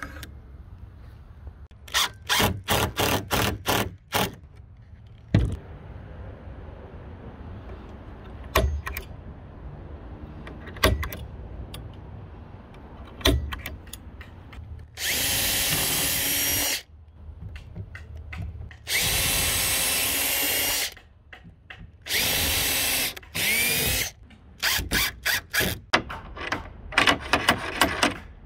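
Power tools working wood. There are bursts of rapid clattering, a few single sharp knocks, and, from about halfway in, a drill running steadily in four runs of one to two seconds each. Rapid clattering returns near the end.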